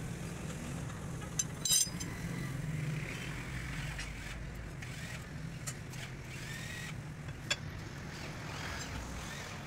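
Steady low mechanical hum, like a running engine, with a few sharp clicks scattered through it.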